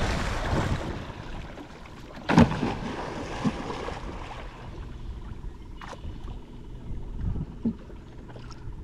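Water rushing and splashing as a dolphin surges at the surface right beside a kayak, fading over the first second or so. A second sharp burst of splashing comes about two and a half seconds in, and low lapping water follows.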